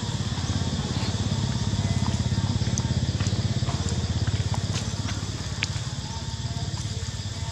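A small engine running steadily with a fast, even low throb that grows louder about two seconds in and eases off after about four and a half seconds, with faint scattered ticks over it.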